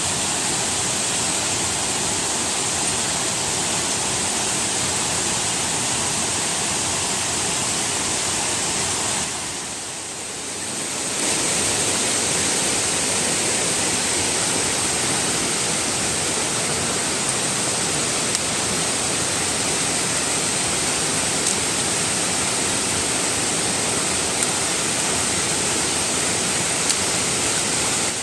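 Waterfall's steady rush of falling water, with a brief dip about ten seconds in.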